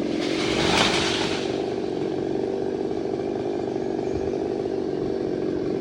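Chainsaw engine running at a steady high speed, with a brief louder burst of rough noise about a second in.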